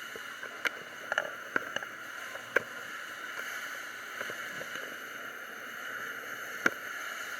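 Steady rushing noise of falling water, with a handful of sharp ticks scattered through it.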